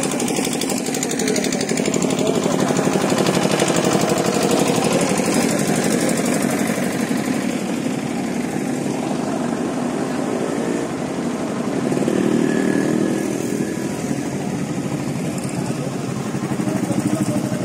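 Engine running steadily and loudly with a fast, even pulse.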